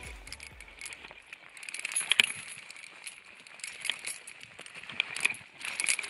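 Heavy iron chain on a rock slab clinking and rattling as it is gripped and pulled, with a series of sharp clinks, the loudest about two seconds in.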